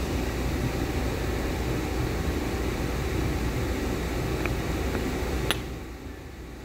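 A steady low hum, with a light metallic click about five and a half seconds in as the air inlet valve's machined piston is set down over its spring onto the cast-iron valve body. The hum fades away just after the click.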